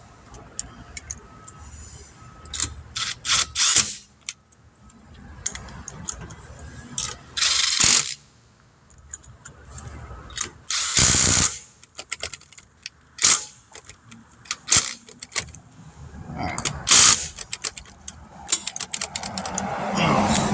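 Lug nuts being run onto a wheel's studs with a socket wrench: a run of sharp metal clicks and several short rasping bursts, with clinks of the socket and nuts between.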